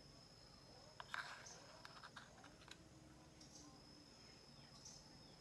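Near silence with a few faint clicks of metal spoons against a stainless bowl as batter is scooped, a small cluster about a second in and scattered ticks after, over a thin steady high tone.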